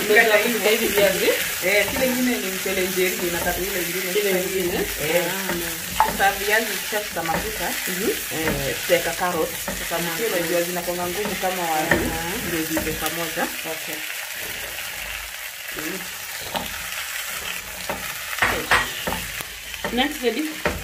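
Potato wedges frying in oil in a pot, sizzling as they are stirred and scraped with a silicone spatula. A wavering tone runs through the first dozen seconds, and a few sharp knocks come near the end.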